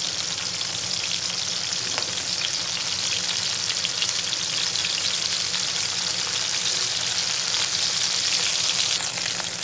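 Marinated chicken pieces sizzling in shallow oil in a pan: a steady crackling hiss with many small pops, the oil spitting because of the watery spice marinade on the chicken.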